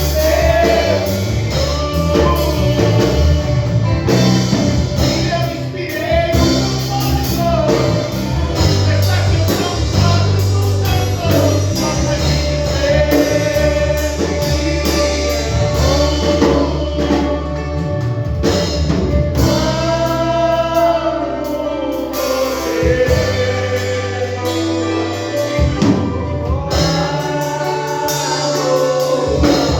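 Gospel band playing a song, with several voices singing together over steady bass and percussion.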